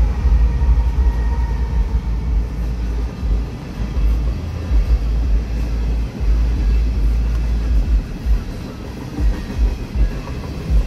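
Norfolk Southern freight train passing: the diesel locomotive's hum fades in the first second as it goes by, then loaded coal hopper cars rumble steadily past, with a few sharper wheel clacks near the end.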